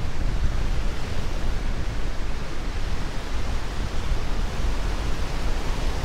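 Steady roar of strong wind buffeting the microphone, mixed with surf breaking on the lakeshore.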